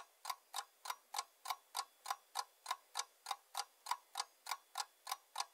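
Clock ticking sound effect, a steady even tick about three times a second, counting down the time to guess.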